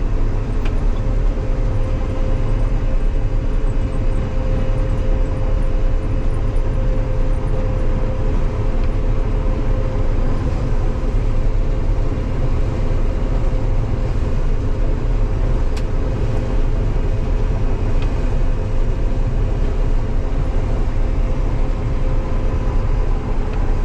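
Combine harvester running steadily under load while cutting soybeans: a constant machinery drone with a steady whine over it.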